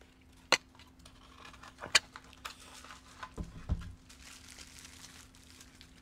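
Unboxing handling: a small cardboard box being opened and bubble wrap crinkling as a keypad is unwrapped. Two sharp clicks come about half a second and two seconds in, followed by a stretch of soft crackling and a couple of low thuds.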